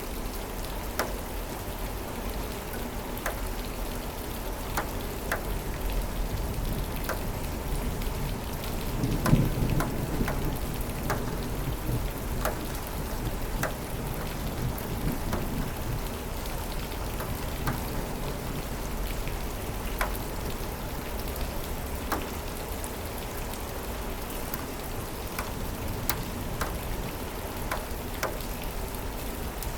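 Steady rain with scattered sharp drops, and a low rumble of thunder swelling about nine seconds in and fading over a couple of seconds.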